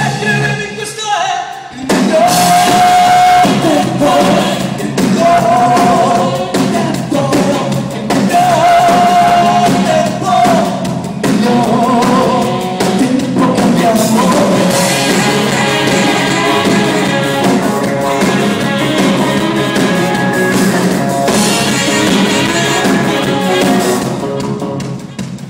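Live band playing a song with a sung lead: electric guitar, drums and voice. The sound thins out briefly about a second in, then the full band comes back in with long held vocal notes, and it drops off near the end.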